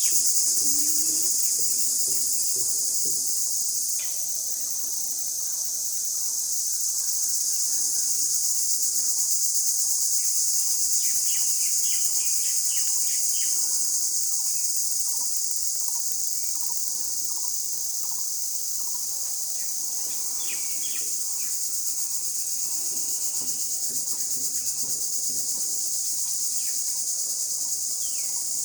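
A dense, steady, high-pitched insect chorus, with short bird calls and chirps here and there.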